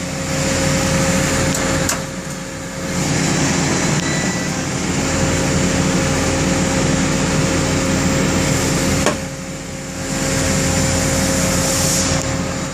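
Cincinnati Milacron Avenger 200S CNC lathe running, a steady machine hum with a loud hiss over it. The hiss drops away briefly twice, the second time just after a sharp tick.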